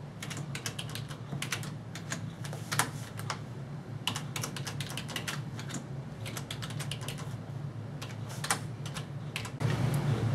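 Typing on a computer keyboard in irregular runs of keystrokes over a steady low hum. The typing stops near the end and the hum grows louder.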